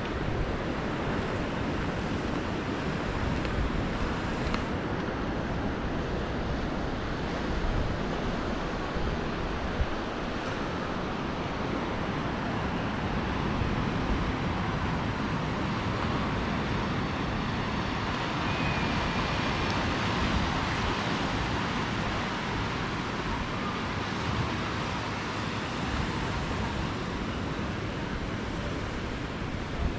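Surf washing over a rocky shore, a steady rush, with wind buffeting the microphone.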